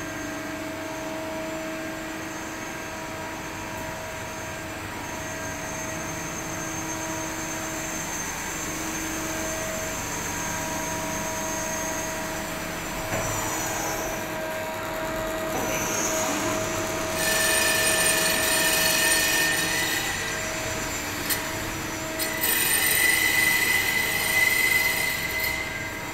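Spinner TC77-SMCY CNC lathe running: a steady mechanical hum with fixed tones, its pitch shifting briefly around the middle, then two louder spells of high-pitched whine of about three seconds each, the first some two-thirds of the way in and the second near the end.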